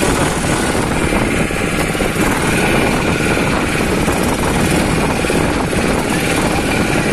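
A wooden motorboat's engine running steadily as the boat moves across choppy water, a loud, even noise without pauses.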